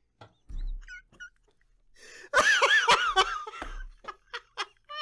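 A man laughing hard: after a quiet start, a loud burst of wavering laughter comes about two seconds in, then breaks into shorter gasping bursts.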